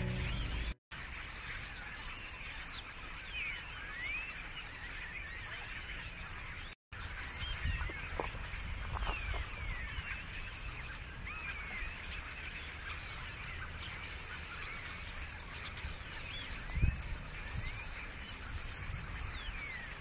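A flock of common starlings chattering: many overlapping whistles, chirps and squeaks that slide up and down in pitch, over a low background rumble. A single low thump sounds near the end.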